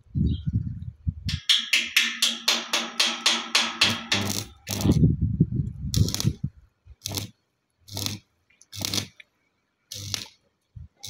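Stick arc welding on a steel gate frame from a transformer arc welder: rapid crackling for the first few seconds, then short bursts of crackle and buzz about once a second, as welds are laid in short runs.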